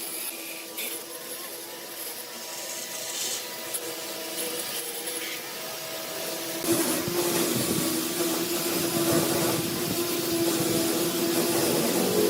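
Rubbing on wood, then a motor starts suddenly about six and a half seconds in and keeps running with a steady hum.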